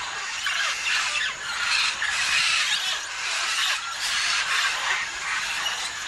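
A large mixed flock of macaws and parrots calling all at once: a steady din of many overlapping harsh squawks and screeches, with no gaps.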